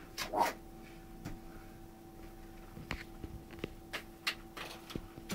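Faint scattered clicks and knocks, a dozen or so spread irregularly, over a steady low hum.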